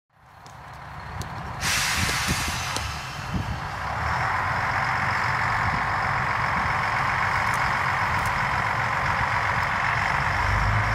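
JR Shikoku commuter train passing along the track: a loud burst of air hiss about a second and a half in, then steady rolling rumble and wheel-on-rail noise with a thin high whine.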